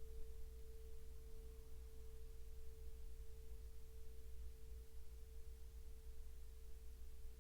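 Tibetan singing bowl ringing on with one faint, steady tone, over a low rumble.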